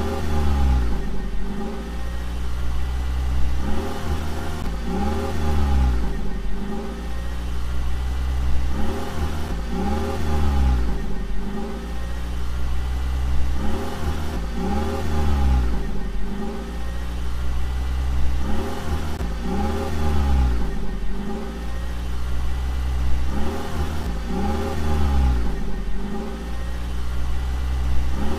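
A vehicle engine revving up and back down about every two and a half seconds over a steady low drone, repeating in an even loop like a dubbed truck-engine sound effect.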